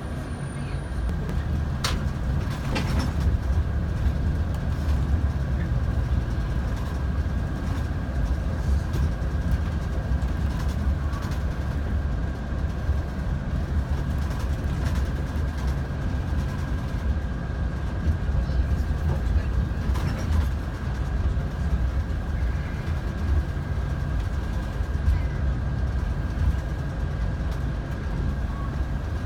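Steady low road rumble of a moving vehicle heard from inside the cabin, with a thin steady whine over it and a couple of faint clicks about two and twenty seconds in.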